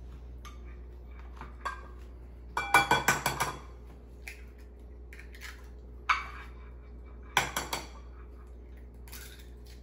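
Eggs being tapped against the rim of a bowl and cracked open: two quick runs of sharp clicks and taps, about a second apart from start to end of each, with a single tap between them.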